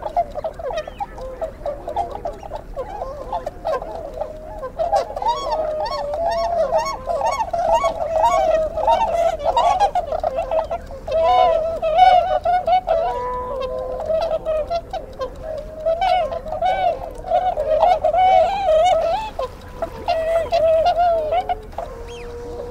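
Birds calling: many overlapping, rapidly wavering calls in a continuous chatter, easing off briefly near the end.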